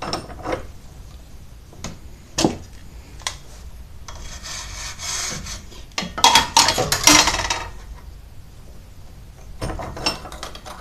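A few sharp clicks and knocks of handling at the vise, then a hacksaw cutting into the plastic housing of an LED bulb: a softer scraping from about four seconds in, turning to louder sawing strokes for a couple of seconds, then more clicks near the end.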